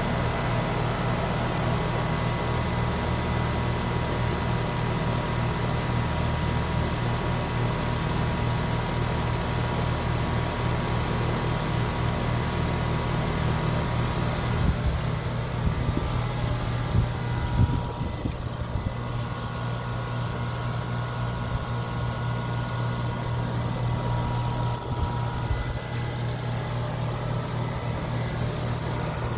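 Tempstar outdoor AC condenser unit running, its Genteq fan motor turning, with a steady electrical hum and a few brief low thumps between about 15 and 18 seconds in.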